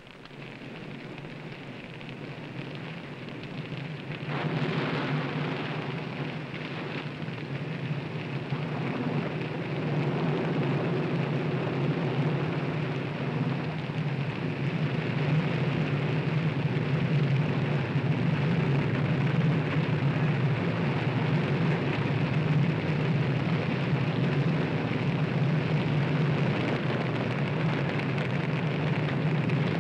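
Roar of a wildfire blow-up and the wind it generates: a continuous rushing noise with a deep rumble underneath. It swells suddenly about four seconds in and grows louder through the rest.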